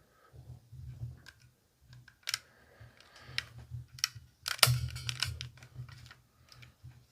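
Irregular clicks and light knocks from hands handling small objects on a table, with a louder clatter about four and a half seconds in.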